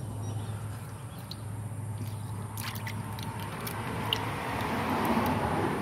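Water sloshing and splashing in a tub as hands rub and rinse eels through it, with a few small splashes about two and a half seconds in and a fuller swish of water near the end.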